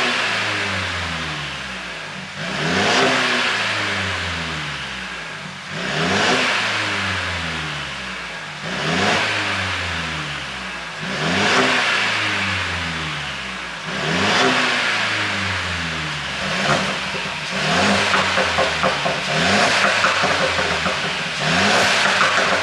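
Mercedes-Benz W205 C200 Coupe's turbocharged four-cylinder engine blipped to high revs about every three seconds, the pitch falling back after each blip. In the second half the exhaust crackles and pops rapidly as the revs drop, the overrun pops of an ECU pop-and-bang tune.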